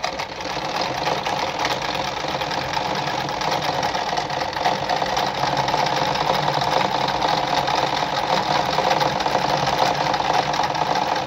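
Mercedes 340FB electric sewing machine running steadily, sewing a zigzag stitch set to stitch length 1.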